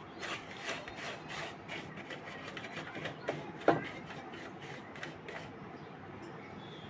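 Dust being scrubbed off an amplifier circuit board: quiet, irregular rubbing strokes, with one louder knock a little past halfway.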